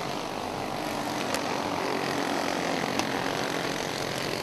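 A pack of champ karts running on the track, their small engines blending into one steady buzz. Two faint clicks stand out over it.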